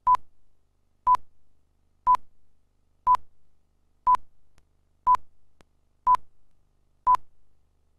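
Countdown leader beep tone: a short, high, steady beep once a second, eight in all, each marking a number of the countdown.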